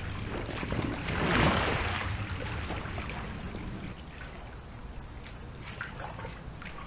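A splash about a second and a half in as a clothed person goes off an inflatable pool float into a swimming pool, fading into water lapping with small splashes.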